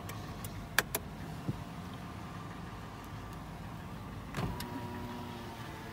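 2013 Toyota 4Runner's 4.0-litre V6 starting about four and a half seconds in and settling into a steady idle, heard from the driver's seat. Before that there is a low steady hum with a couple of clicks.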